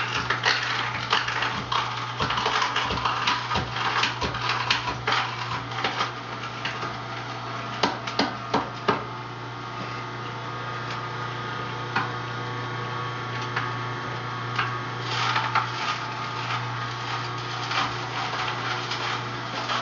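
Electric juicer running with a steady motor hum while vegetables are pushed down its feed chute. Frequent knocks and clatter come through the first half and again near the end.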